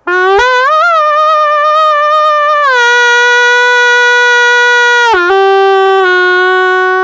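Alpha Howler open-reed wolf call blown in one long wolf howl: it rises quickly in pitch at the start, holds, then steps down to a lower note about three seconds in and again after a brief break about five seconds in, the low notes made by letting up the bite on the reed.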